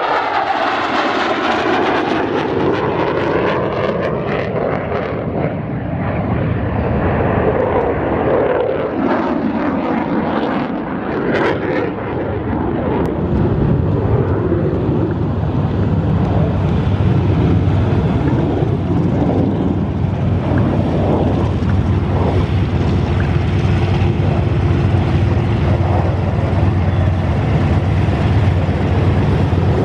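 F-16 Fighting Falcon's single turbofan jet engine on a display pass. The engine noise falls in pitch over the first few seconds as the jet flies close by, then thins out with a wavering, sweeping tone. From about halfway a steady deep rumble builds and holds as the jet comes back toward the viewer.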